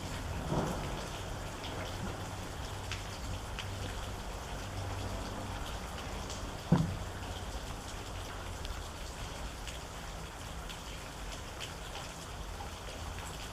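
Steady rain with scattered individual drops ticking, and two heavier drops landing, one about half a second in and a louder one about halfway through.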